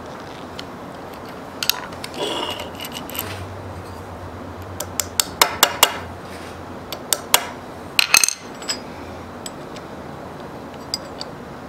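Small steel lathe parts and a screwdriver clinking and knocking against a steel bench top as they are handled and fitted, in scattered sharp clinks with a brief scrape about two seconds in and quick runs of clinks around five to six seconds and again around eight seconds.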